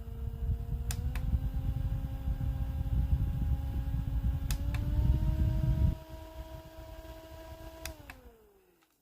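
Small Secret Jouju electric fan's motor humming, stepping up in pitch after a button click about a second in and again after another click past four seconds: switched to higher speeds. A low rumble of air on the microphone stops about six seconds in, and after a last click near the end the hum falls in pitch and fades as the motor is switched off and spins down.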